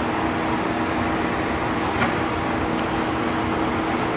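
Fortuna universal ID/OD grinder running with its OD grinding wheel motor and hydraulics on: a steady, quiet hum with a steady low tone. A light click about two seconds in.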